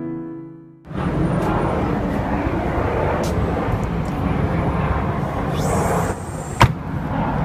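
A single sharp click of an aluminium sliding door's locking handle latching, near the end, over a steady outdoor rumble. A piano tune fades out in the first second.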